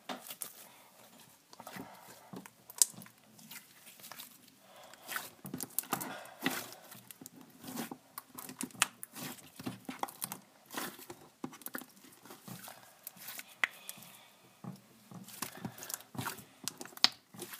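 Fingers poking and squishing slime, making irregular wet clicks and pops, several a second, with a few sharper snaps.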